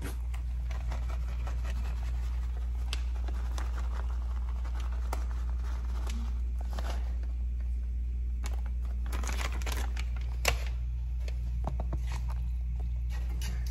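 A spoon stirring and scraping a rice-and-ground-meat stuffing in a cast iron skillet: scattered light scrapes and clicks, one sharper knock about ten seconds in, over a steady low hum.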